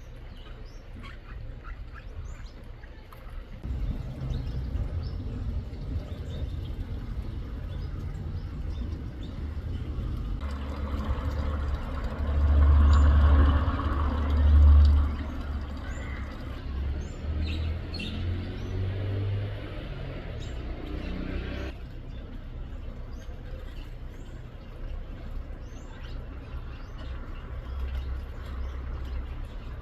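Birds chirping in short, high calls, over a low rumble that starts a few seconds in. The rumble swells into a louder stretch from about a third of the way in until past two thirds, loudest in two peaks near the middle, then drops back.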